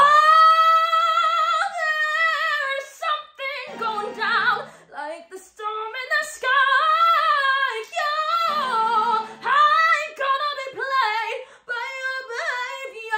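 A woman singing a pop song solo in a strong belted voice: she slides up into a high note at the start and holds it with vibrato for nearly two seconds, then sings short phrases with bends and quick runs.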